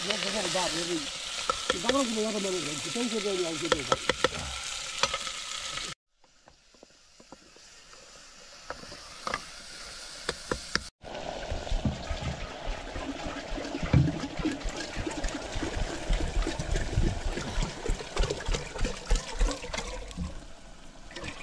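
Ladle stirring and scraping in a cooking pot over an open wood fire, with sizzling and the fire crackling. A man's voice is heard in the first few seconds; the sound drops away suddenly about six seconds in and is quieter until about eleven seconds.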